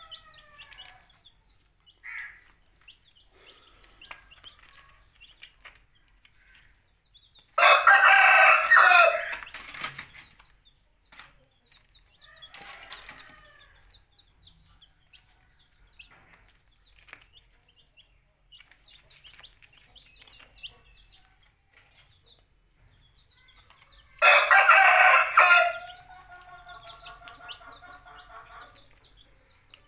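Young chicks peeping in short, high chirps throughout, with two loud, long calls from an adult chicken, about eight seconds in and again near the end, the second trailing off into a quieter drawn-out note.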